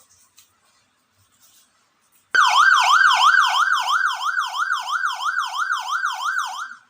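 AS920 wireless siren module playing the Landun 100DA siren sound through a Landun YH100 horn speaker. It starts suddenly about two seconds in with a loud, fast yelping tone that sweeps up and down about three to four times a second, then drops sharply in volume near the end.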